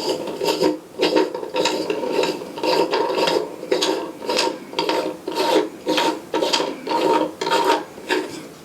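Threaded visual back being screwed by hand onto the rear cell of a Celestron 9.25-inch Schmidt-Cassegrain telescope. It makes a run of short, squeaky rasping strokes, two or three a second, as metal threads grind against each other with each twist. The strokes stop near the end.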